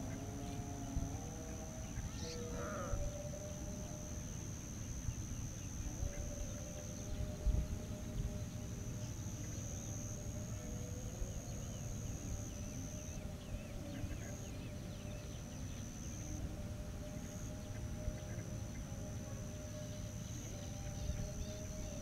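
Wetland outdoor ambience: a steady high-pitched drone runs throughout, with faint, distant wavering calls and a low rumble underneath.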